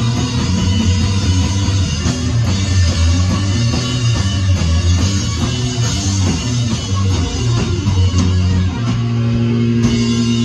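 Live rock band playing loud: electric guitar, bass guitar and a drum kit. About nine seconds in, the band holds a sustained chord.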